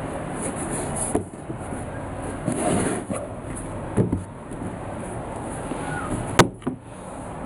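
Handling noise as sneakers are turned over and moved by hand: a few soft knocks and one sharp click about six seconds in, over a steady background hiss.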